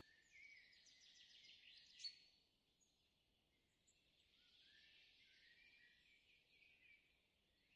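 Near silence, with faint high-pitched chirps in the background.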